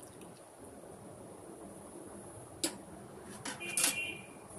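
Kitchen utensil clinks over low room noise: a sharp click a little past halfway, then a short ringing clink about a second later.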